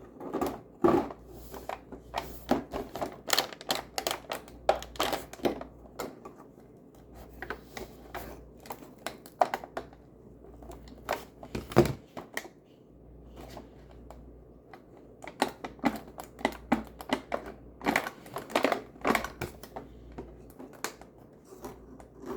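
Fingers picking at and opening a cardboard advent calendar door and its small plastic packaging: an irregular run of clicks, taps and crinkles, with one sharper snap about twelve seconds in.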